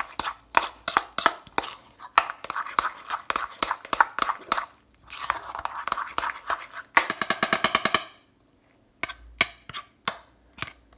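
Spoon stirring oatmeal in a pot, knocking against the sides in a quick run of sharp clicks. About seven seconds in the taps come very fast for a second, then stop briefly before a few more knocks.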